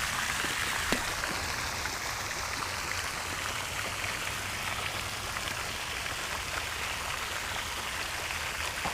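Steady hiss of running or falling water, with one sharp click about a second in.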